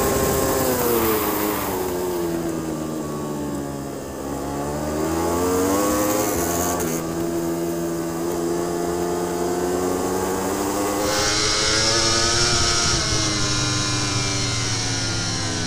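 Onboard sound of a racing superbike: the Ducati Panigale V4 R's V4 engine winds down through the gears for about four seconds, then climbs hard as it accelerates out and holds high revs. About 11 seconds in it switches to the Yamaha R1's inline-four at high revs, easing off near the end, with wind rush throughout.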